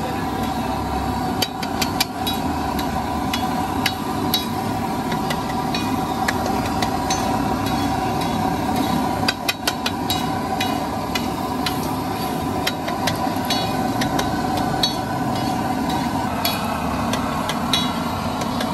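Metal spatulas clinking and scraping against a large flat iron griddle in irregular strokes as chopped boiled eggs are stirred into masala, over a steady background hum.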